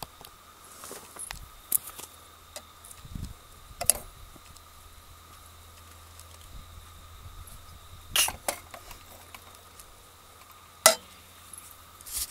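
Scattered metal clinks and knocks as a small folding steel camp stove's wire grate is handled and a metal pot is set on it: a few sharp clanks spread apart, the loudest about eleven seconds in.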